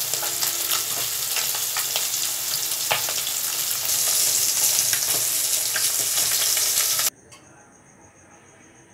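Fish pieces sizzling and spitting in hot oil in a wok, with a few sharp clicks of a metal spatula turning them. About seven seconds in the frying cuts off abruptly, leaving faint, steady cricket chirping.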